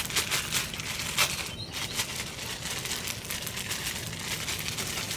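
Plastic ramen noodle wrapper crinkling as it is handled and opened, an irregular run of small sharp crackles.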